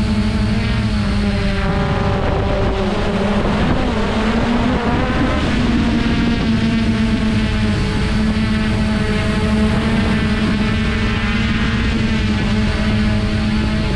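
Traxxas Aton quadcopter's electric motors and propellers running in flight: a steady, loud buzzing hum whose pitch wavers between about four and six seconds in as the motors change speed.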